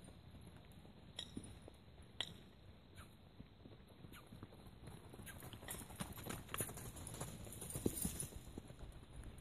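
Hoofbeats of a Welsh Cob going around a round pen on dirt footing, uneven and getting louder about halfway through. Two sharper knocks come about one and two seconds in.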